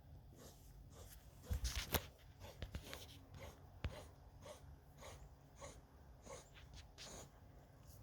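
A dog making quiet mouth sounds that repeat about every two-thirds of a second, with a few sharper knocks and clicks in the first four seconds.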